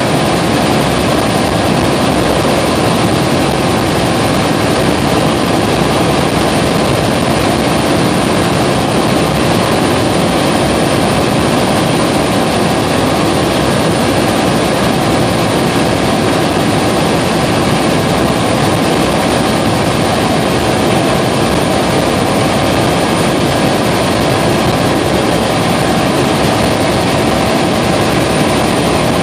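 Helicopter in steady flight, heard from inside the cabin: loud, unchanging engine and rotor noise with a steady whine over it.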